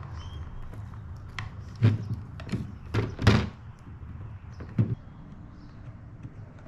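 Handling noise from wiring a plastic electrical junction box: a run of irregular knocks and clicks as wires and crimp connectors are pushed into the box and its lid with a power socket is fitted, the loudest knocks about two seconds and just over three seconds in.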